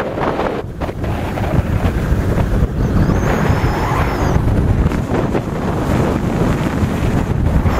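Strong wind battering the camera microphone in uneven gusts, a loud low rumbling noise, from a gale on an open snowy mountaintop during a storm warning. There is a brief lull about a second in.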